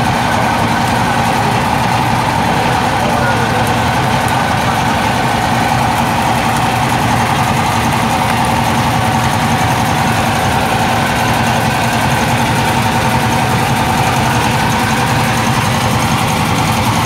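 Fishing boat's inboard engine running steadily at an even speed.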